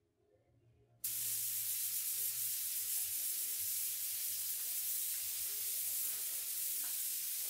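Gravity-fed compressed-air spray gun spraying primer: a steady high hiss of air and atomised paint that starts suddenly about a second in as the trigger is pulled.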